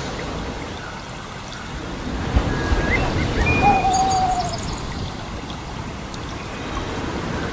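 Birds calling with a few short whistled and chirping notes, most of them in the middle, over a steady rushing background noise that grows a little louder in the middle.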